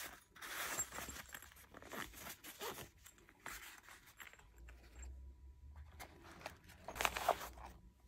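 Handling of small gear: scraping and rustling as a metal spork is slid into its fabric sleeve, with the loudest rustle about seven seconds in as a folded cloth bandana is picked up and handled.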